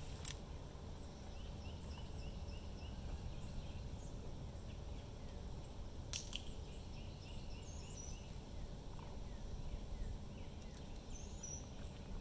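Outdoor ambience with a steady low rumble, over which a bird repeats short chirps in quick runs of several notes. One sharp click comes about six seconds in.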